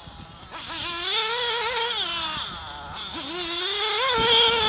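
JQ Racing THECar Black Edition, a 1/8-scale nitro buggy, with its glow engine revving on and off the throttle as it is driven. The pitch climbs, holds, dips about two and a half seconds in, then climbs again to its loudest near the end.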